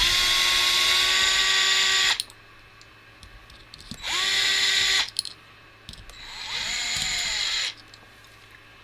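Small electric screwdriver whining in three bursts, about two seconds, one second and one second long, backing screws out of a quadcopter frame. The third burst builds up more slowly and is softer.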